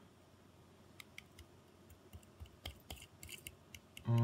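Faint, irregular light clicks and ticks of coarse black powder being tapped out of a shotgun shell into a steel scoop on a scale, growing more frequent in the second half.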